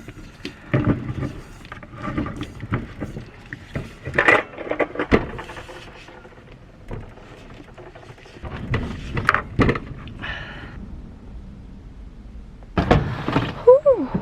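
Irregular knocks, clatter and rustling of things being handled, with a short squeak that bends in pitch near the end.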